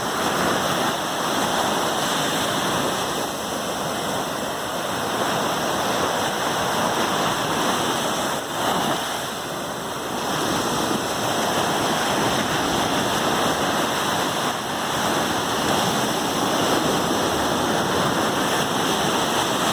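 Sea waves: a continuous rush of surf, with a brief lull about halfway through.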